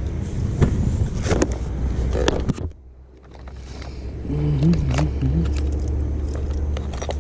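Light metallic clicks and clinks of fishing tackle handled while a lure is changed, over a low steady rumble that drops away briefly about three seconds in.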